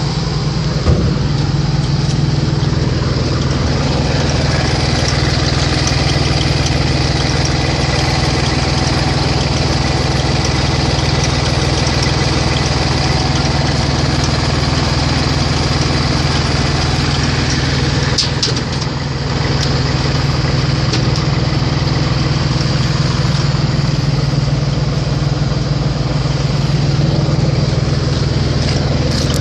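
Grégoire grape harvester's diesel engine running steadily and loudly close by, with a brief dip in level about 18 seconds in.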